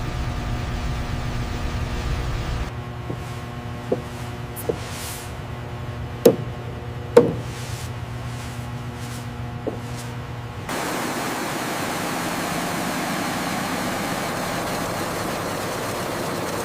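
Workshop sounds in three parts: a steady low machine hum, then about six sharp knocks with a short metallic ring, the loudest two in the middle, then a steady hissing noise for the last several seconds.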